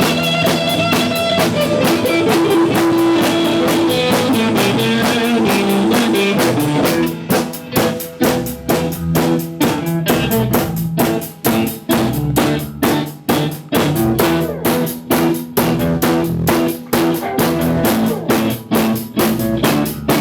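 Rock band playing an instrumental break on drum kit and electric guitar. For about the first seven seconds, held guitar notes ring over the drums. After that the band plays short, clipped hits in a steady rhythm, with little gaps between them.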